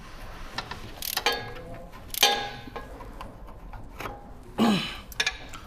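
Metal hand tools clinking and knocking against steel parts, with several sharp ringing clinks about a second and two seconds in. A louder scrape with a falling tone comes near the end.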